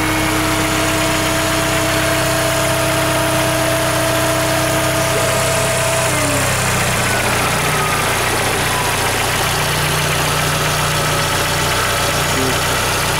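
Volkswagen Golf Mk5 1.6 petrol engine with about 190,000 km on it, idling steadily, heard close up in the open engine bay. A faint steady whine sits over the idle and stops about six seconds in.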